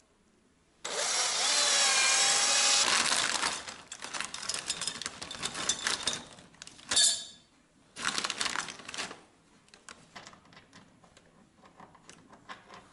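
Cordless drill boring through a rubber mudflap: the motor starts suddenly about a second in and runs for nearly three seconds, its whine wavering in pitch as the bit bites. Short bursts of rustling and handling noise follow, with two louder bursts in the middle.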